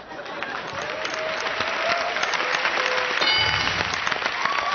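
Studio audience applauding a correct answer on a TV game show: steady, dense clapping.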